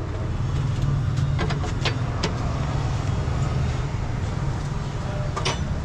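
Steady low rumble of a vehicle engine running, with a few light metallic clinks from tools and parts being handled at a truck's wheel hub.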